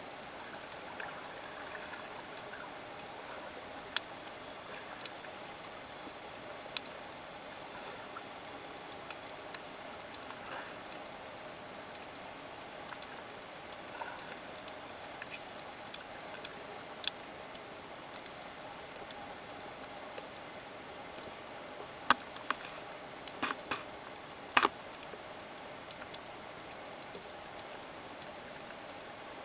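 Underwater sound of a coral reef heard through a submerged camera: a steady hiss with scattered sharp clicks and crackles. A few louder clicks come about three-quarters of the way through.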